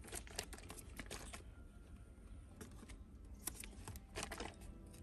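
Baby monkey sucking on a milk bottle: soft small clicks and smacks in irregular little clusters.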